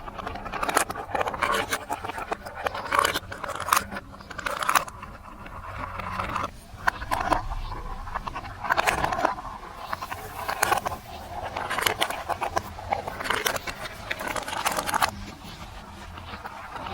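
Plastic marble-run blocks and marbles clattering and scraping, with frequent sharp clicks throughout.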